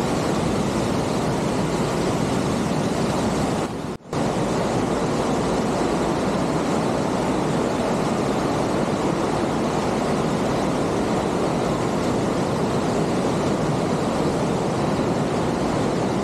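Steady loud rush of a mountain creek cascading over rocks, broken once by a brief dropout about four seconds in.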